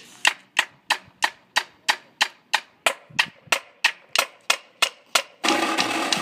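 A steady tempo click, about three sharp ticks a second, counting in a marching snare drumline. About five seconds in, the drumline comes in playing loudly together.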